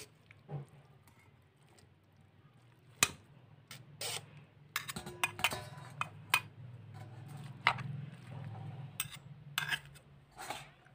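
Steel utensils clinking and knocking: a steel mesh strainer and spoon tapping against a steel mixer-grinder jar and bowl as boiled spinach is tipped and pushed into the jar. The knocks come irregularly, a dozen or so, over a faint low hum.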